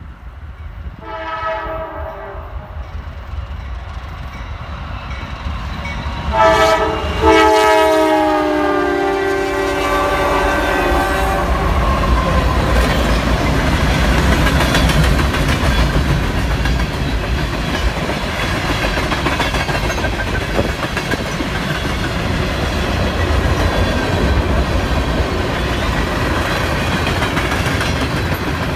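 Freight train locomotive horn sounding three times: a blast about a second in, then a short one and a long one from about six seconds in, the last dropping in pitch as the locomotive goes by. Freight cars then roll past with a steady rumble and clickety-clack of wheels over the rail joints.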